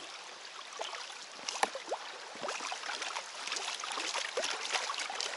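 A small forest stream gurgling and trickling, with scattered sharp clicks, knocks and short creaks as rubber boots step onto the old, rotting logs laid across the water; the sharpest knock comes about a second and a half in.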